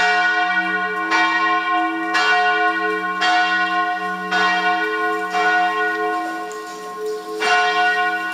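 Church bells ringing from a stone bell tower, struck about once a second, their deep tones humming on between strikes. There is a longer gap before a last strike near the end.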